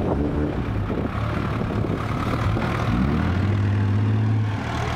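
Six-wheel dump truck's diesel engine running while tipping soil, revving up about three seconds in, holding the higher speed, then dropping back near the end.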